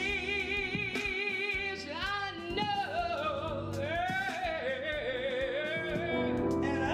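A woman singing solo into a handheld microphone. She holds a note with a wide vibrato, then slides through long melodic runs over sustained accompaniment.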